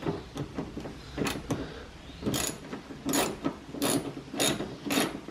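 Hand ratchet clicking in short repeated strokes as it turns a fastener holding a car's front bumper at the wheel well. The strokes are fainter at first, then louder and more regular, roughly one a second, from about halfway through.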